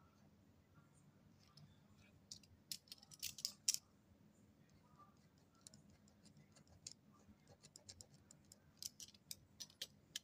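Scattered sharp clicks and light scratches as a snap-off utility knife is handled and its blade worked along the edge of the ink letters on paper. A cluster of louder clicks comes a few seconds in, then a run of quieter clicks near the end.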